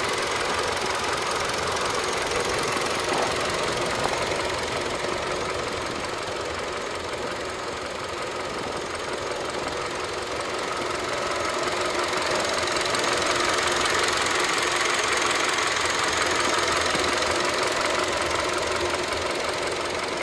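2013 Kia Cerato's 1.6-litre inline-four DOHC 16-valve engine idling steadily, heard close up through the open hood, a little fainter for a few seconds midway.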